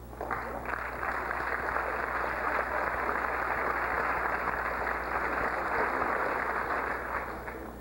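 Audience applauding, steady for about seven seconds and dying away near the end.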